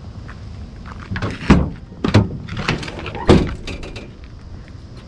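Ford F-150 pickup tailgate being unlatched and lowered and the bed cover lifted: a run of clunks and knocks, the heaviest about three seconds in.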